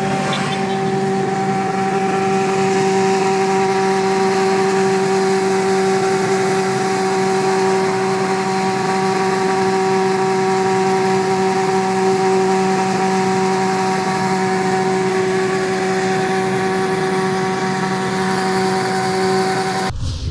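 Sport motorcycle engine running at a steady high speed alongside a car, heard from inside the car over road noise, as a drone that holds one pitch. It cuts off suddenly near the end.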